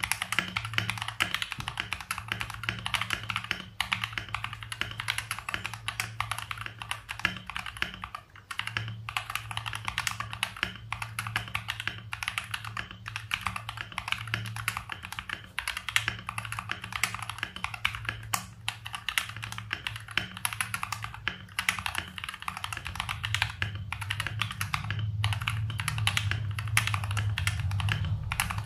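Continuous fast typing on a mechanical keyboard fitted with KTT Mint linear switches, stock and not yet lubed or filmed: a dense run of keystroke clacks.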